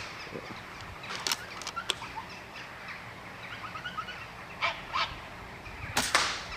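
A few faint sharp clicks and small chirps, then a louder sharp crack about six seconds in: an air rifle shot at a rat in the roof beams.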